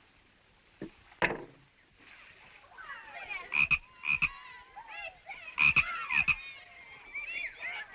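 A single knock about a second in, then frog croaking: two pairs of loud croaks among quick warbling calls.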